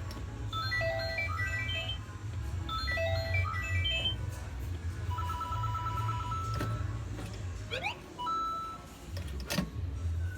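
Outro music: quick runs of short high notes and a rapidly repeated note over a steady low bass, with a rising glide and a sharp hit near the end.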